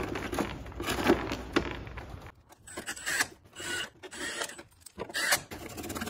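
Rubbing, scraping and irregular clicks of plastic parts as a LiftMaster garage door opener's black logic-board housing is pushed back into place with gloved hands.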